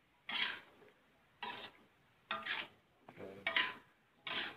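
A metal spatula scraping and stirring chopped vegetables in a wok, in short strokes about once a second.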